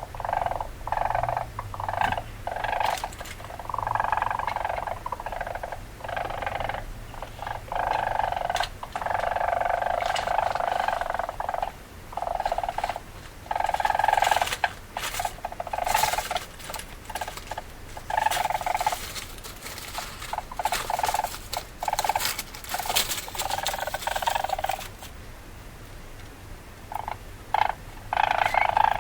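Weasel calls: rapid runs of short, choppy calls with brief pauses between runs.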